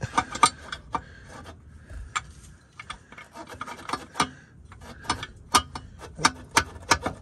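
Irregular metallic clicks and short scrapes of steel bolts and tools being handled as 19 mm engine mount bolts are fitted into the mount.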